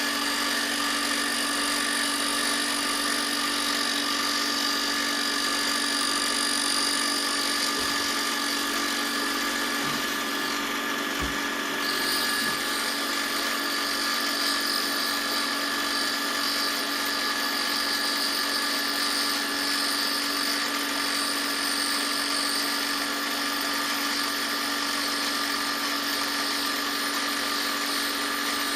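A power tool's motor running steadily as a constant whine made of several steady tones, with a slight change in the high tones about twelve seconds in.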